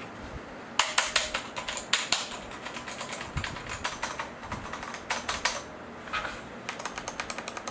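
Typing on a MakThing K77 mechanical keyboard with red linear switches: runs of quick key clacks, a brief pause about six seconds in, then a faster run near the end.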